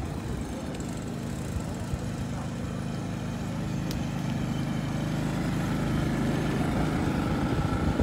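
Vehicle engine idling steadily, getting gradually louder toward the end.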